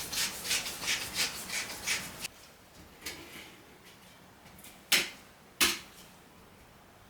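Kitchen prep sounds: a run of quick, even strokes, about three a second, that stop after about two seconds, then two sharp clicks close together near the end.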